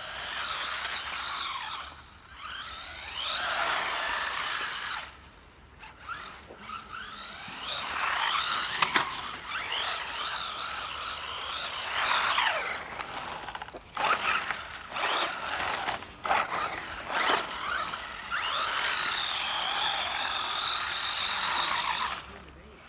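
WLtoys A979-B electric RC monster truck driving fast: the motor and drivetrain whine, gliding up and down with the throttle in repeated spurts, with short breaks where it lets off.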